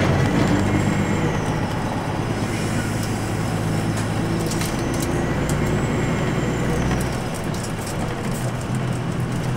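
2006 Nissan Diesel Space Runner RA city bus's diesel engine under way, heard from inside the bus, with a steady drone and a faint high whine that rises and falls twice. The engine note eases off about seven seconds in.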